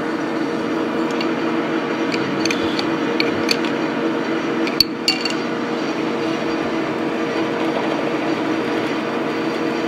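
Electric drill running steadily as a larger bit cuts into a Mag-Lite flashlight, with a run of light metallic clinks in the middle and one sharp click about halfway through.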